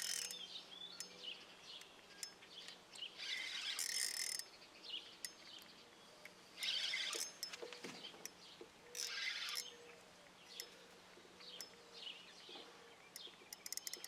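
Fishing reel ratcheting in three short bursts, each under a second, while a hooked big fish is fought, which the angler takes for a catfish. Birds chirp between the bursts.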